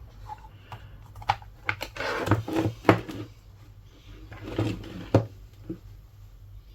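Hands handling a tablet and small tools on a workbench: a few sharp clicks and taps, with two short bursts of scraping and rustling.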